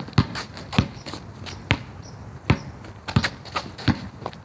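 Basketball being dribbled, six bounces a little under a second apart, with lighter taps in between.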